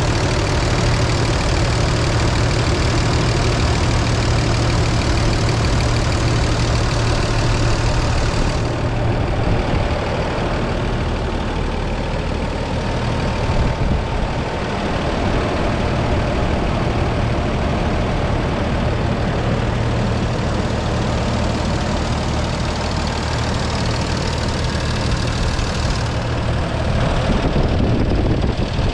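1980 Toyota Land Cruiser FJ's 2F inline-six, converted to throttle-body fuel injection, idling steadily while warming up after a cold start.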